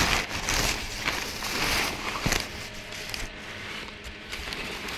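Cardboard box and plastic wrapping rustling and scraping as a hand rummages inside to lift out a packed mirror ball. There is a sharp knock about two seconds in, and the handling grows quieter after it.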